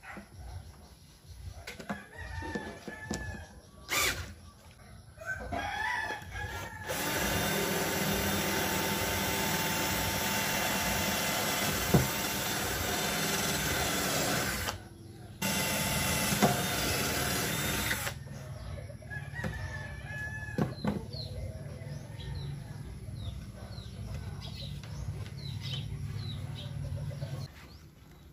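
A power drill runs loud and steady for about eleven seconds, with a brief stop partway through. Roosters crow before and after it, and chickens cluck and chicks cheep in the background.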